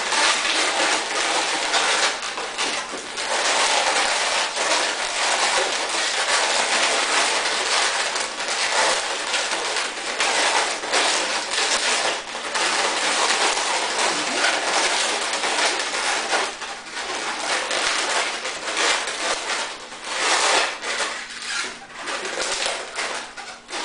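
Latex modelling balloons squeaking and rubbing against each other as they are twisted and wrapped together by hand: a dense, continuous run of rubbery squeaks and creaks that breaks into shorter spurts with gaps in the last few seconds.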